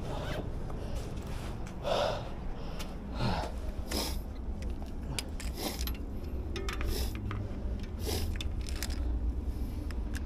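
Wind and road noise during a bike ride: a steady low rumble with short hissy gusts on the microphone every second or so.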